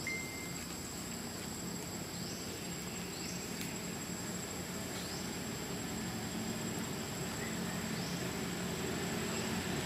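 Outdoor insect drone: a steady high-pitched buzz, with a few short rising chirps scattered through it.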